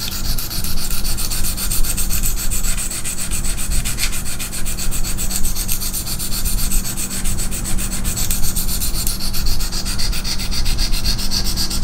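A 300-grit diamond stone on a KME guided knife sharpener rasping in fast back-and-forth strokes along a steel knife edge, a steady scraping grind.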